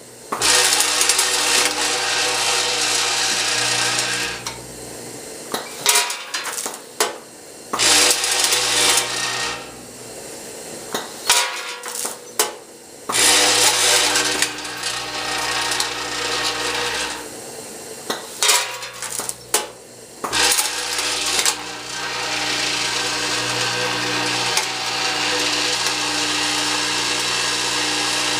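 Logical Machines S-6 cascading scale's vibratory feed pans buzzing, with wrapped cough drops rattling across the metal pans. The feed switches on and off every few seconds with brief clatters of drops, then runs steadily near the end.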